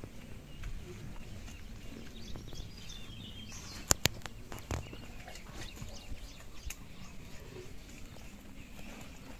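Quiet outdoor ambience with scattered bird chirps and a few sharp knocks, the loudest a single click about four seconds in.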